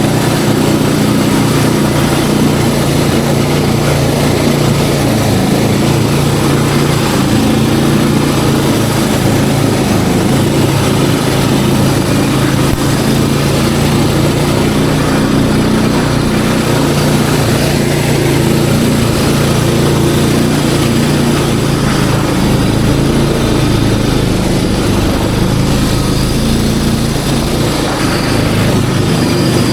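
Snowmobile engine running steadily at an even pitch and level.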